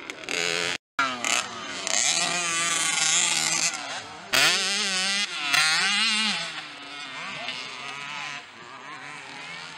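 Small motocross bike engines revving up and down hard as the mini bikes race over the dirt track. The sound cuts out for a moment just under a second in.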